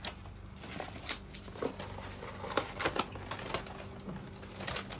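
Scattered light clicks, taps and crinkles of takeaway food packaging and containers being handled, about a dozen short sounds at an uneven pace.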